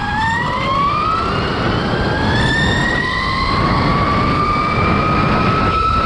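Electric dirt bike motor whining under hard acceleration on a 72-volt battery, its pitch rising steadily with speed and levelling off near the end, over wind rushing on the microphone. The rider doesn't like the way the motor sounds at higher RPMs.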